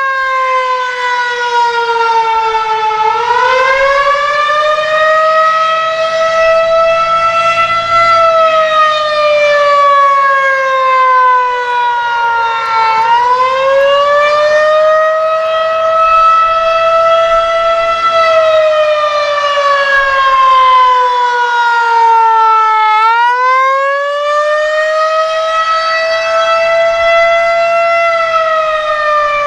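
Federal Signal 2001-130 electromechanical outdoor warning siren sounding the Attack signal: a loud wavering wail whose pitch sinks slowly for about five seconds, then climbs quickly and levels off. The cycle repeats about every ten seconds, with lows about three, thirteen and twenty-three seconds in.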